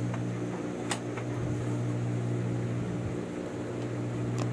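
Steady electric motor hum from an idling sewing machine motor, with two light clicks, about a second in and near the end.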